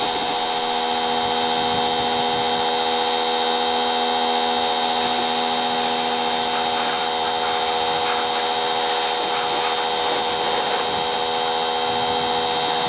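Electric pressure washer running: a steady motor whine with several tones over the hiss of the water jet hitting the car's bodywork.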